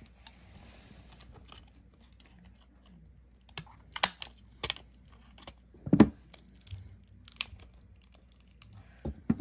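Scissors snipping through the stiff clear plastic blister pack of a microSD card: a series of sharp clicks and crackles as the plastic is cut and handled, with a louder dull knock about six seconds in.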